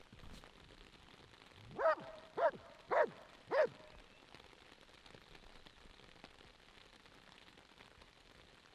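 A dog barking four times in quick succession, about two barks a second, at a decoy standing passive in front of it.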